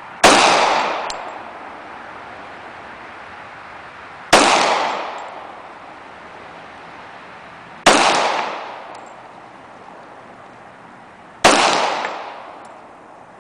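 Four single shots from a Glock 21 .45 ACP pistol, fired slowly, about four seconds apart. Each report rings out for about a second and a half, and a faint click follows about a second after each shot.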